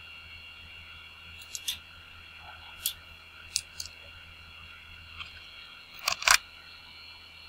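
Steady high-pitched electronic whine over a low hum, broken by a few sharp, short clicks; the loudest, a quick pair, comes about six seconds in.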